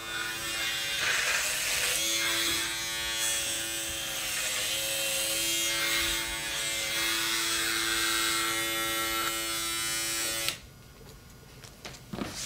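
Electric hair clippers buzzing steadily for about ten seconds, the pitch dipping slightly once or twice, then switched off suddenly.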